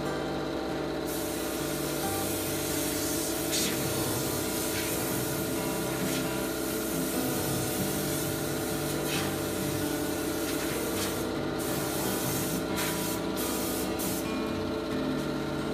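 Steady spraying hiss, starting about a second in and cutting out briefly a few times near the end, over background music.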